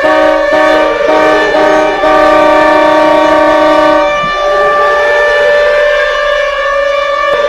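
Aberdeen Wings' 2010–2012 hockey goal horn blowing, a loud chord of steady tones broken by a few short gaps in the first two seconds and then held. From about four seconds in, the lowest tone drops out and the rest slowly slide down in pitch like a siren winding down.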